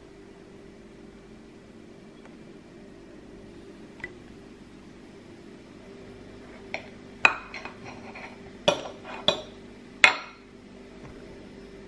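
Knife and fork clinking on a ceramic plate as a soft pastry is cut: quiet at first, then about five sharp clinks in the second half, over a faint steady hum.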